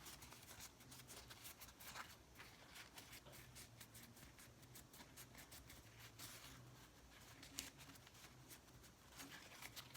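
Near silence, with faint scattered clicks and rustles of small things being handled and a faint low hum.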